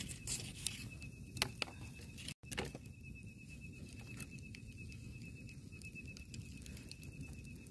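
Quiet night-time outdoor ambience: a faint, thin, steady high insect whine, with a few soft clicks and crackles in the first two and a half seconds.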